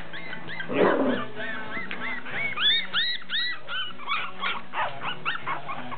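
Black toy poodle puppies whining and yelping in quick, high-pitched squeals, one louder yelp about a second in, over background music.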